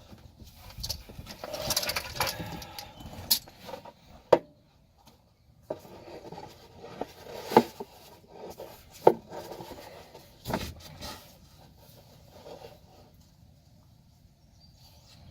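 Metal hand tools clinking and knocking under a truck as a wrench is worked onto a fitting during an oil change: a handful of sharp clicks and knocks, a few seconds apart, over faint rustling.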